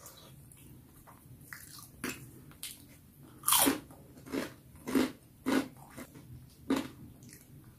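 Close-miked chewing of baso tahu (tofu and fish-paste dumplings) in peanut sauce: a run of wet mouth smacks starting about two seconds in, roughly one every half second to a second, the loudest about three and a half seconds in.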